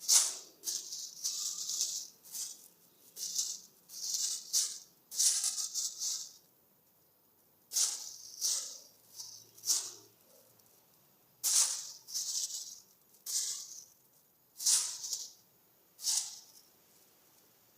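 A kitten playing with plastic: crisp crinkling and rustling in irregular bursts of a second or two, separated by short quiet gaps.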